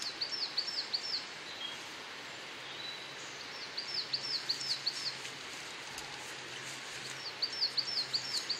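A small songbird sings the same short phrase three times, about every three and a half seconds. Each phrase is a quick run of about seven high, down-slurred notes, over a steady outdoor hiss.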